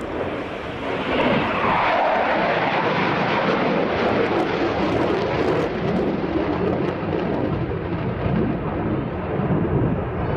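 RAF Eurofighter Typhoon FGR4 jet, its twin Eurojet EJ200 turbofans making loud jet noise as it passes. The noise swells over the first second or two with a falling pitch as the jet goes by, then stays at a steady, loud level.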